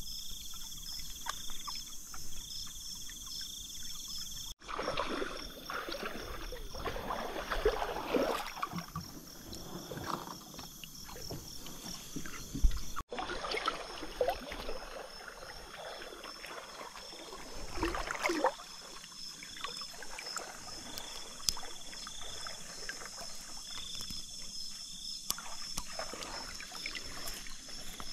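Shallow river water sloshing and splashing in irregular spells, as if stirred by wading, paddling or net handling, over insects chirping steadily in a fast pulsing rhythm. The sound breaks off abruptly twice, about 4.5 and 13 seconds in.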